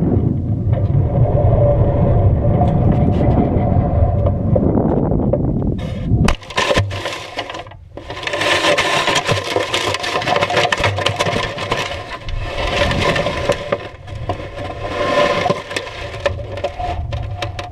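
Wind rushing over the onboard camera of a half-scale Patriot model rocket as it comes down. The airframe hits the ground about six seconds in, then crackles and scrapes against dry crop stubble as it shifts, with wind buffeting the microphone.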